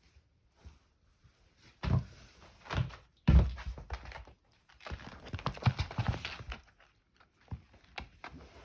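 A kitten playing and pouncing: a few thumps, then a stretch of rustling and small clicks, with scattered ticks near the end.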